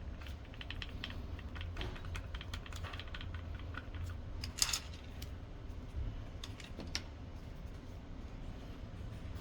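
Scattered small clicks and taps of a digital door lock's plastic and metal parts being handled and screwed back together, with one louder click about four and a half seconds in, over a low steady hum.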